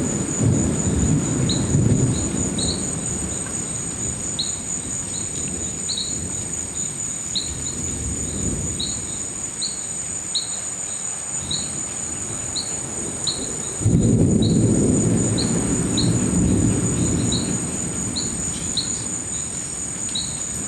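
Thunder rumbling from a nearby lightning storm: a low rumble at the start, and another that sets in suddenly about two-thirds through and fades over several seconds. Under it runs a steady high trill of crickets, and a short chirp repeats more than once a second.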